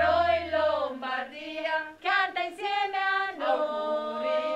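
Voices singing together in long held notes that change pitch about every second, with short breaks between phrases. A low steady bass note underneath stops about a second in, leaving the voices unaccompanied.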